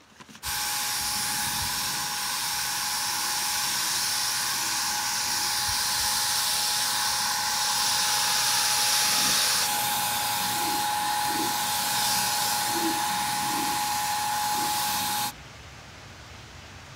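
Handheld electric paint sprayer running: a steady loud hiss of atomised water sealer with a constant high whine from the sprayer, spraying the wood. It stops abruptly near the end.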